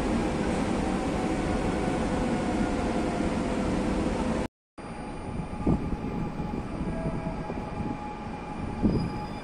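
EP07 electric locomotive passing slowly close by: a steady rumble of its running gear and motors with a faint whine that falls a little. About halfway through it cuts off abruptly, giving way to quieter station noise with faint steady tones and a few short knocks.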